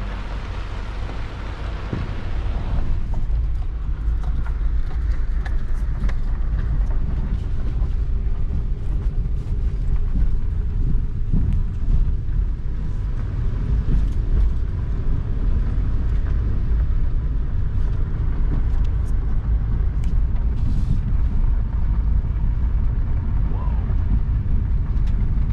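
Car driving along a dirt and gravel road, heard from inside the cabin: a steady low rumble of engine and tyres, with a brighter hiss in the first couple of seconds.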